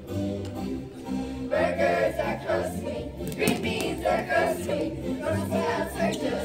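A song playing: a group of voices singing over a backing track with a steady bass line.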